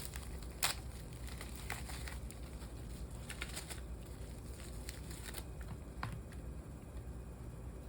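Light handling noise: scattered small clicks and faint crinkling, with one sharper click about half a second in, quieter in the last couple of seconds.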